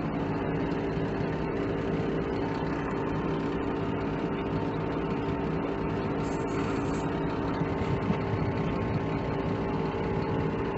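Dump truck's diesel engine idling steadily after being parked, with a short faint hiss about six seconds in.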